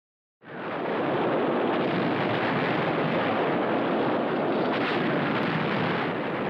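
A steady, dense rumbling noise with no separate blasts, fading in quickly about half a second in: a film soundtrack effect of explosions.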